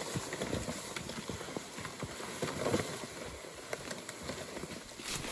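Irregular crunching footsteps on a leaf-littered forest trail, with a plastic sled scraping and rustling over the ground and brush as it is dragged along loaded with a dead black bear.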